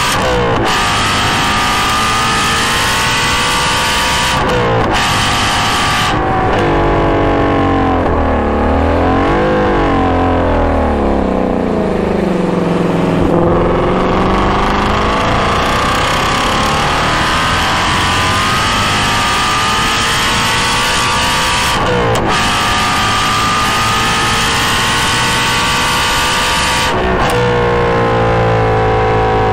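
2016 Shelby GT350's flat-plane-crank V8 through a GT350R exhaust, revving hard through the gears with sharp breaks at each upshift. Around a quarter of the way in it comes off the power, with quick rev blips on the downshifts, down to its lowest revs near halfway. It then pulls up through the gears again, with upshifts late on.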